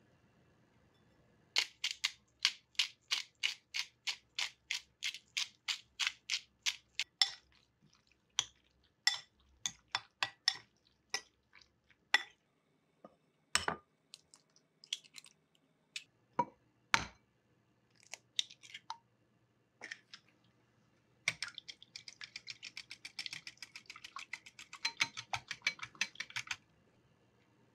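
Kitchen prep sounds at a glass bowl. First a run of quick, even clicks, about four a second, as raw chicken hearts are seasoned. Then sharp knocks of eggs cracked against a glass bowl, one and then two close together, and last a fast clatter of the eggs being beaten in the glass bowl.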